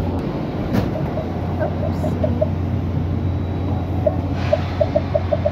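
A vehicle interior's steady low hum, with faint voices and two short runs of quick, light ticks at about five a second.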